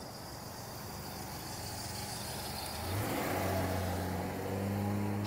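Ford Ranger pickup driving up and passing close by: tyre and road noise swell as it approaches, and its engine hum comes in about three seconds in, loudest as it goes past.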